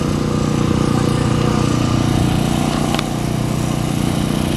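Generator engine running steadily with an even low hum, and a faint click about three seconds in.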